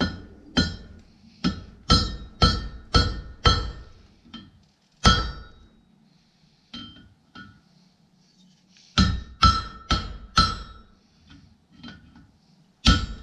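Blacksmith's hammer striking hot steel on an anvil, each blow ringing. Seven or eight blows come in the first five seconds, then a pause, then four quick blows and one more near the end, shaping a forged door handle.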